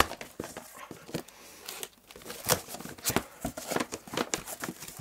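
Cardboard shipping carton being opened and handled: irregular rustling, scraping and knocks of cardboard, with one sharper knock about halfway through.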